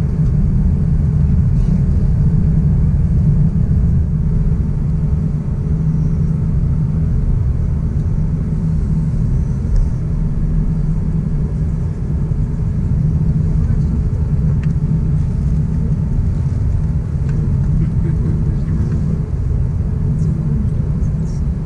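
Airbus A350-900 cabin noise while taxiing: a steady low rumble from the Rolls-Royce Trent XWB engines at taxi power and the rolling airframe, heard from inside the cabin.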